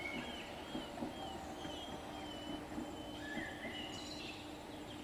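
Birds chirping in short, bending calls again and again, over a steady hiss and a faint steady low hum.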